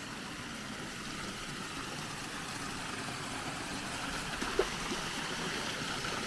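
Water spilling over a small stone weir into a muddy pool: a steady rushing that grows slightly louder toward the end. There is one short tap about four and a half seconds in.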